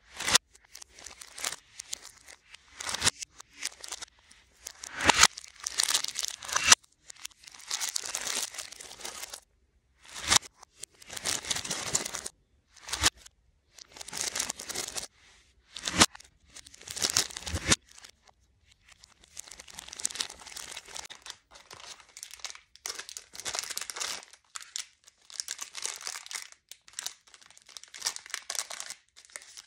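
Cellophane candy wrappers crinkling in irregular bursts as packaged marshmallow treats and gummy lollipops are handled and moved, with a few sharp clicks among them.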